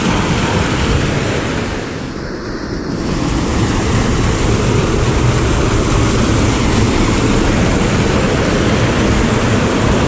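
Water rushing down a small rocky waterfall cascade: a loud, steady roar of falling water.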